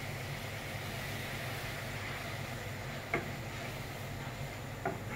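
Warm milk being stirred into roasted semolina in a nonstick pan: a steady low hiss, with the spoon clicking against the pan twice, about three seconds in and near the end.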